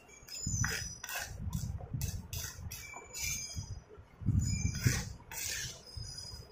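Metal spoon stirring a thick wet chalk paste in a clay bowl: repeated strokes, about two a second, with wet squelching and light scraping clinks of the spoon against the bowl.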